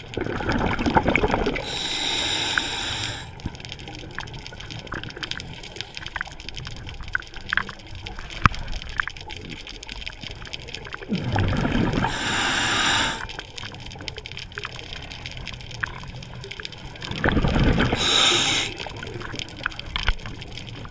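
Scuba diver breathing through a regulator underwater, heard three times: each breath a low bubbling rush followed by a hiss. Faint scattered clicks lie in between.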